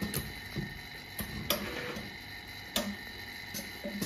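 Automatic jewelry wax injection machine running: its mold conveyor and mechanism give a handful of sharp, irregular clicks and clacks over a steady machine tone.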